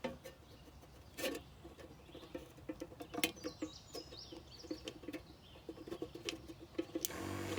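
Irregular small water pops and clicks in a minnow bucket. Near the end a battery aerator (bubbler) pump switches on with a steady electric hum.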